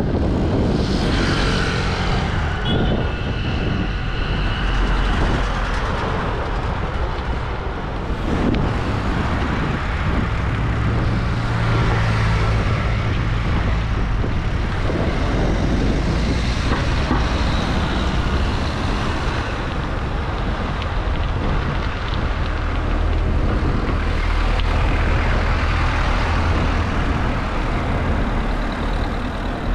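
Urban road traffic heard from a bicycle: motor vehicles running and passing close by, with a stronger low engine hum from a heavier vehicle about ten seconds in. Under it runs a steady low rumble of wind on the action camera's microphone.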